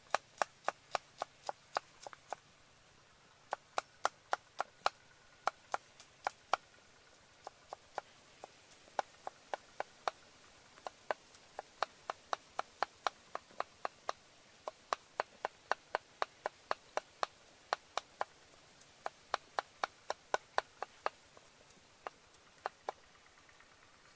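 Knife chopping garlic on a round wooden chopping block: quick, regular chops, about four a second, in runs with a few short pauses.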